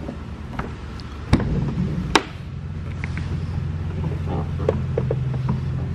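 Sharp clacks of a Jeep Wrangler JL's rubber hood latches being unhooked and the hood released, with the two loudest snaps in the first half. A steady low hum sets in partway through and continues under the handling of the hood.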